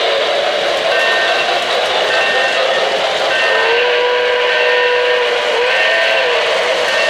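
O-gauge model trains running on three-rail track, with a steady rolling rumble and rush of the wheels. A steam whistle sounds from about three and a half seconds in, holding one note for a couple of seconds before dipping and sounding again.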